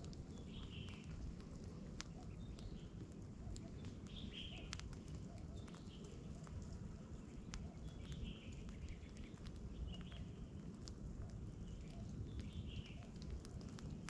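Small twig campfire crackling, with many sharp pops and clicks as it catches, over a low steady rumble. A few short bird chirps come in every few seconds.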